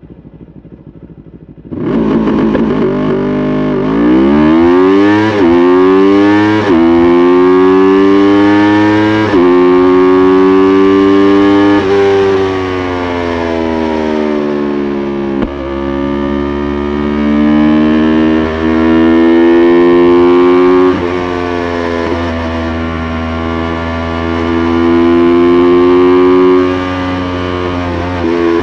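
Yamaha YZF-R3's 321 cc parallel-twin engine comes in loud about two seconds in and accelerates hard, its pitch climbing and dropping back at each of about four quick upshifts. It then runs at steadier revs, with a few more gear changes.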